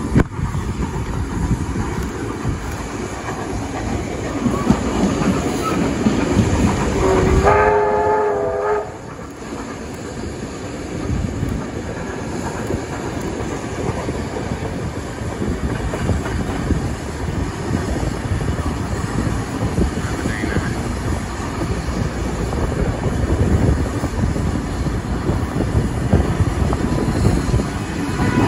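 Steam-hauled train running, heard from on board as a steady rumble. A locomotive whistle sounds once for about a second and a half, a quarter of the way in, and another whistle blast begins right at the end.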